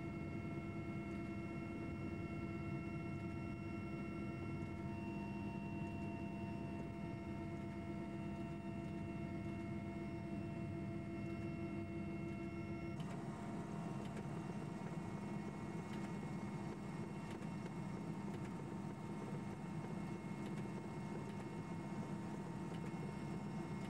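Helicopter cabin noise: a steady engine and rotor drone with several constant whining tones over it, which change suddenly about halfway through.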